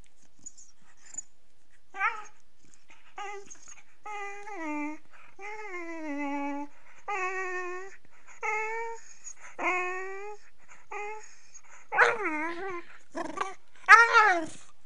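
Beagle puppy 'singing' in play: a string of about ten drawn-out, pitched whining calls, several sliding down in pitch, starting about two seconds in. Two louder, higher yowls come near the end.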